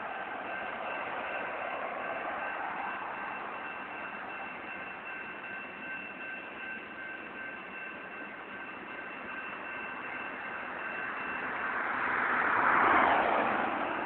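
Freight train of autorack cars rolling past, a steady rumble and rush of wheels on rail with a faint steady high tone. Near the end a louder rush swells and fades.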